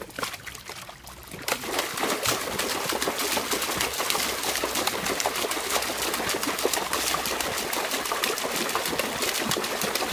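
A dog splashing in a plastic tub of water, a fast, continuous churning of splashes that starts about a second and a half in.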